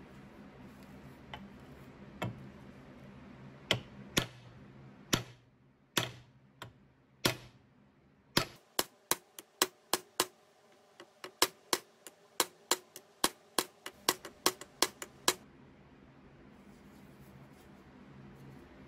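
Small hammer tapping the rivets on a carpenter's square's handle, with the square resting on the steel anvil of a bench vise, peening the rivets to set them. A few scattered taps, then a steady run of about three taps a second that stops about fifteen seconds in.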